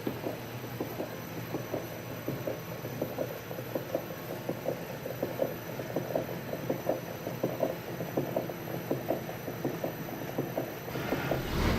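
Engine crankcase turned over by an electric motor at 300 rpm, with a rapid, repeating knock several times a second: the abnormal noise from inside the crankcase. Near the end a louder hiss and low hum join in.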